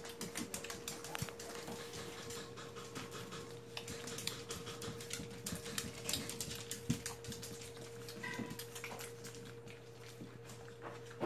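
Litter of puppies suckling from their mother dog: rapid, irregular wet clicking and smacking, with a brief high squeak about eight seconds in.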